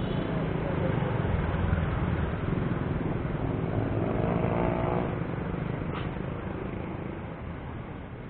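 Road traffic heard from a moving bicycle: motorcycle and car engines running close ahead, over a steady rush of road and wind noise. An engine grows louder around four seconds in and then fades, and there is a single short click about six seconds in.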